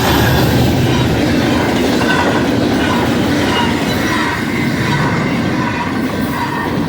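BNSF intermodal freight train passing close by at speed: steady loud rumble and rattle of wheels on rail, with faint squealing notes from the wheels.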